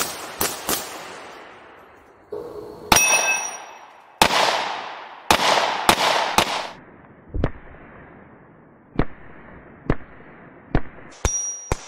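Glock pistol gunshots fired at targets: single shots and quick strings, irregularly spaced, some with long decaying tails. A steel target plate rings after some of the hits.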